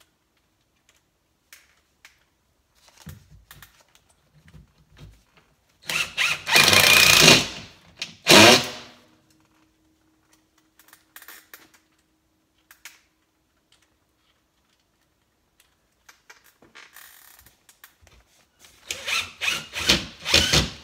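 Cordless drill driving screws into ceiling drywall: one long run of about two seconds, then a shorter burst, with small knocks in between, and near the end a quick string of short stop-start bursts as screws are driven home.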